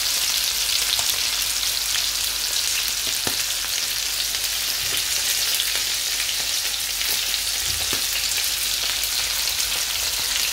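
Anchovies sizzling as they fry in oil in a frying pan: a steady hiss with a few faint pops.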